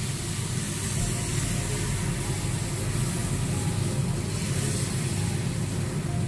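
Thin rice-and-coconut neer dosa batter sizzling on a hot dosa griddle as it is poured and spread and sets into a lacy sheet full of holes, over a steady low rumble.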